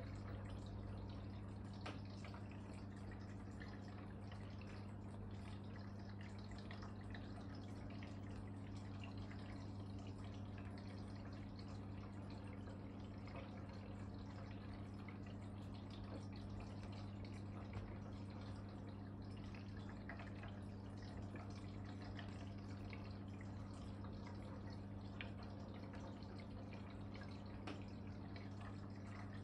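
Aquarium water trickling and dripping, with many small ticks, over a steady low hum from the tank's running equipment.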